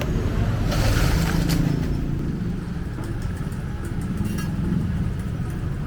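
Street traffic: vehicle engines running steadily, with a brief hissing noise about a second in.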